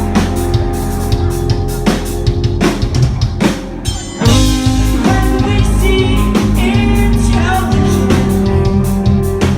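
Live rock band playing loudly: pounding drums with bass and guitars. About four seconds in the band thins out briefly, then comes crashing back in with the full band.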